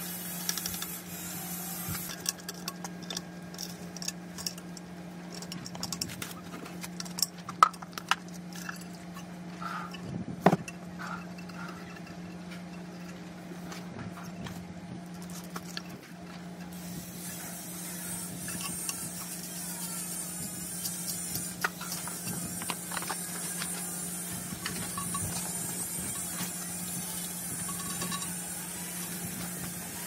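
Plastic fittings being pushed and screwed into a ceramic toilet tank by hand: scattered light clicks and knocks, with two sharper knocks a few seconds apart near the middle, over a steady low hum. A faint high hiss joins about halfway.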